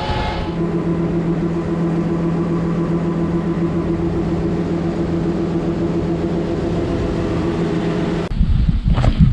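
Combine harvester running with a steady droning hum. About eight seconds in it cuts to wind buffeting the microphone, with a few clicks.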